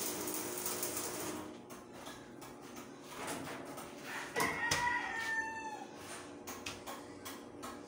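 Arc welding crackling and hissing on the steel stair railing for about the first second and a half, then the arc stops. About four and a half seconds in, a rooster crows once.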